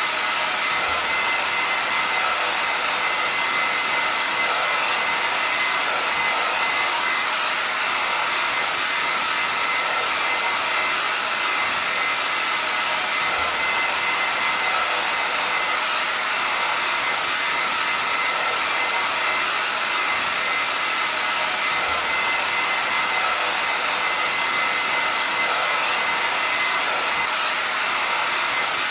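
Hair dryer running continuously at a steady speed: an even rush of blown air with a constant high motor whine.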